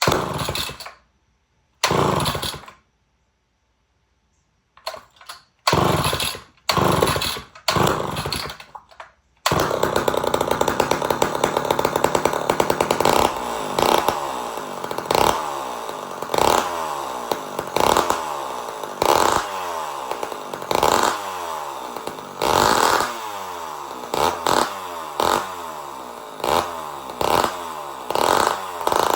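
Homelite Super XL12 two-stroke chainsaw with a straight stack muffler, a little bit loud. It sounds in several short bursts broken by silences, then about nine seconds in keeps running and is revved again and again, each rev dropping back toward idle.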